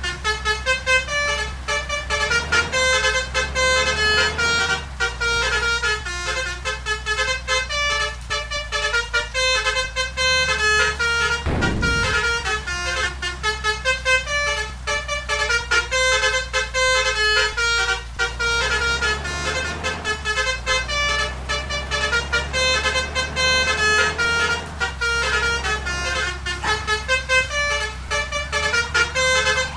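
Bus basuri horn, the Indonesian 'telolet' multi-trumpet musical air horn, playing a melody as a quick, unbroken run of short notes over a low steady hum.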